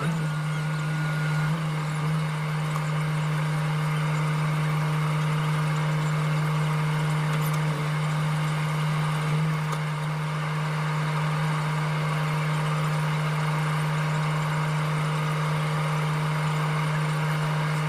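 A motor running steadily at one even pitch, with no change in speed or load.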